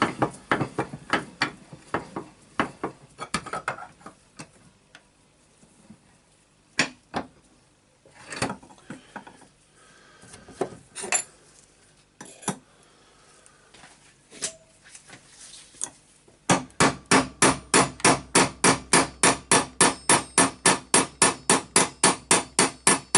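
Hammer striking the armature shaft of an orbital sander to knock it out of its stuck ball bearing: scattered single knocks at first, then, about two-thirds of the way in, a rapid steady run of about five strikes a second.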